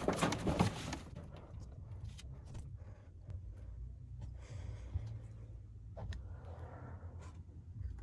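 Galvanised sheet-metal panel of a ducted air conditioner's indoor unit scraping as it is handled, loudest in the first second, then light clicks and knocks of metal parts.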